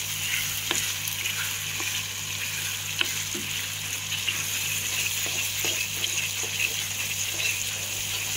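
Tamarind paste sizzling and bubbling in hot oil in an iron kadai, with a steady frying hiss. A metal spoon stirs it, clicking lightly against the pan every second or so, over a steady low hum.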